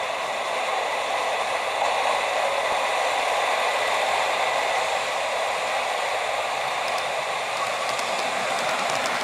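Model KiHa 283 train running along the layout track: a steady rushing of wheels and motor, with a few faint clicks near the end.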